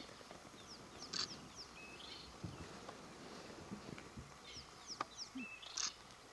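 Bird song, faint: a short phrase of quick, high descending chirps and a harsh rasping note, sung twice, about a second in and again near the end.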